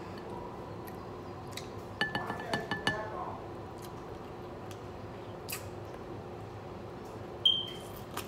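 A glass bowl clinking: several quick ringing knocks about two seconds in, then one sharper ringing ping near the end, over a steady low hum.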